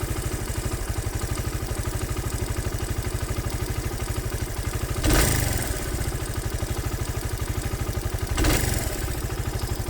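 Suzuki DR 125 SM single-cylinder four-stroke engine idling warm with an even, steady pulse, blipped up briefly twice, about halfway through and again near the end. The owner is unsure whether this running sound is normal.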